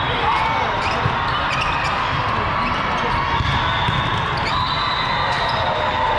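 Din of a busy volleyball hall: balls bouncing and being struck on hard courts, many short knocks and thuds over a steady wash of crowd noise.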